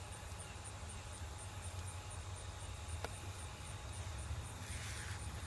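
Quiet background with a steady low hum and a faint high-pitched pulsing about four times a second. A single light click comes about three seconds in, and a brief paper rustle near the end as the brochure pages are handled.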